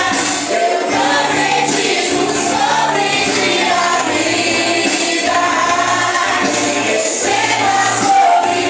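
Christian worship song sung by a group of voices with musical accompaniment, notes held and gliding over a steady backing.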